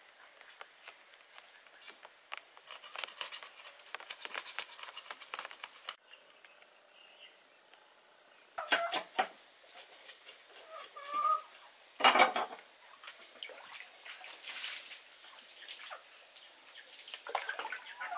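A knife scraping scales off a fish on a wooden board: a rapid run of short scratchy strokes. Then water splashing and pouring from a plastic dipper as the fish is rinsed on the board, with a few sharp knocks, the loudest about two-thirds of the way through.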